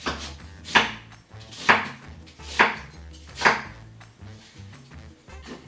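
Chef's knife chopping through a raw onion onto a wooden cutting board: four sharp chops about a second apart, then lighter cuts.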